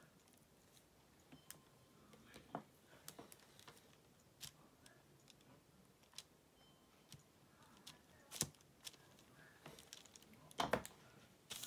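Faint tabletop handling of fabric scraps and a small craft iron: scattered small clicks and taps with light rustling, the loudest a short cluster of knocks near the end.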